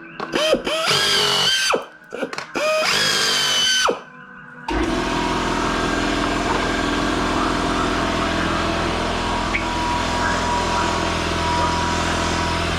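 Power tool, the nibbler being used to cut the aluminium, run in short trigger bursts that each spin up and wind back down. About five seconds in, a steady, continuous machine noise with a low hum starts and keeps going.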